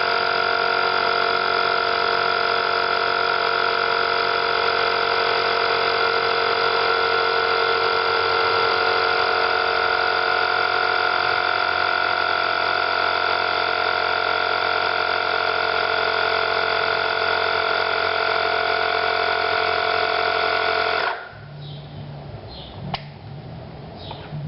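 Black & Decker ASI200 12 V portable tyre-inflator compressor running with a steady buzzing hum, then stopping abruptly about 21 seconds in. A few faint clicks follow, one sharp.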